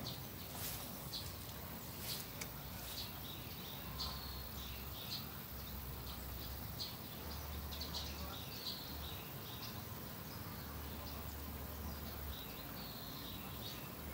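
Small birds chirping in short, scattered calls over a steady outdoor background noise.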